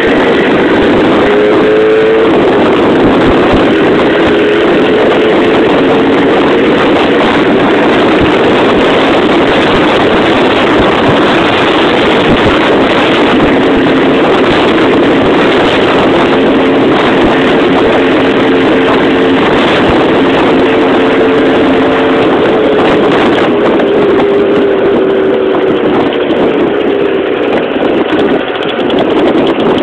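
Jawa 350 type 639 two-stroke twin motorcycle engine running at a steady cruising speed, heard on board with loud wind rush over the microphone. Near the end the engine note drops slightly in pitch and loudness as it eases off.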